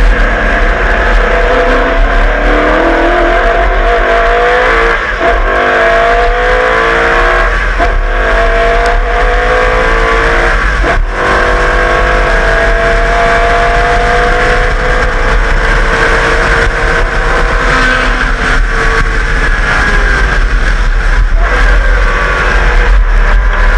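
1989 HRT Walkinshaw VL Commodore Group A race car's V8 engine under hard acceleration on track. The revs climb steadily through each gear and drop sharply at each upshift, several times in a row.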